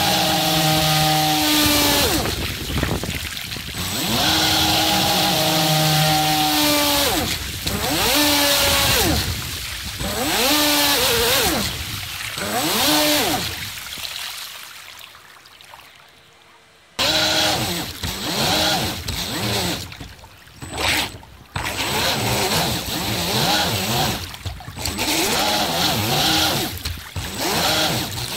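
Electric motor and propeller of an RC model boat whining under throttle, the pitch rising and falling as the throttle is opened and eased off, over a hiss of water along the hull. The whine dies away about halfway through and starts again suddenly a few seconds later.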